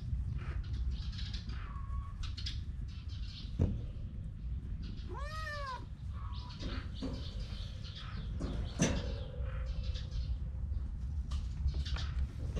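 A kitten meows once about five seconds in, a single call that rises and then falls in pitch. Two sharp knocks come a little before and a few seconds after it.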